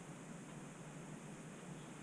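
Faint steady hiss with a low hum: room tone, with no distinct sound.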